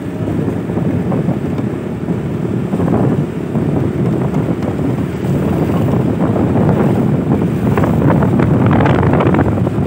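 Heavy wind buffeting the microphone of a camera riding on a moving vehicle up a steep road, with the engine running underneath, gustier and louder near the end.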